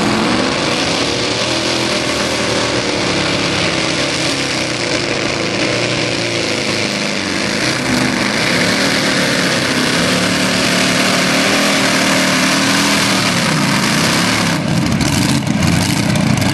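Supercharged methanol-burning Chevy big-block V8 of a mini pulling tractor running hard under load as it drags the sled, its pitch wavering, with a few sharp pops near the end. A broken valvetrain part has left one cylinder not firing; the announcer calls it ignition problems.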